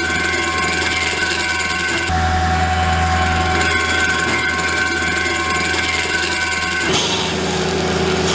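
Skid steer loader's engine running steadily at working speed, driving a Baumalight S24 hydraulic stump grinder attachment, with a strong low hum and a steady whine. The sound shifts abruptly twice, about two seconds in and about seven seconds in.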